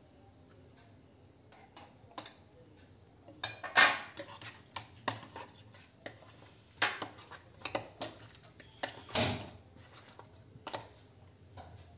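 A hand mixing pieces of marinated fish with jowar flour in a bowl: irregular clinks and knocks of fingers and fish against the bowl, with soft handling in between, two knocks louder than the rest.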